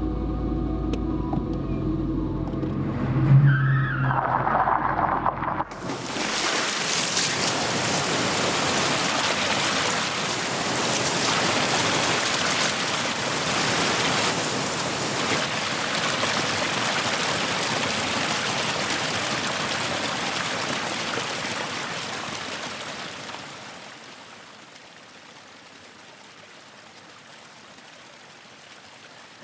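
A car plunging into the sea: about six seconds in, a sudden loud rush of water surging around it, which dies down near the end to a soft steady wash.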